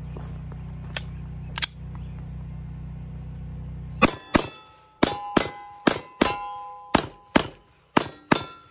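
A Gen 4 Glock 34 9 mm pistol firing about ten shots, beginning about four seconds in, mostly in quick pairs, with steel targets ringing after the hits.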